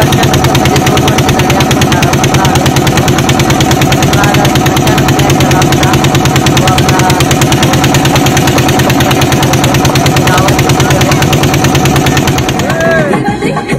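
Small fishing boat's engine running steadily under way: a rapid, even beat over a steady drone.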